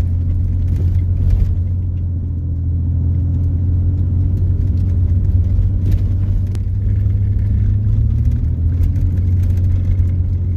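Steady low rumble of a vehicle driving on the road, engine and road noise together, with a slight shift in engine pitch about eight seconds in.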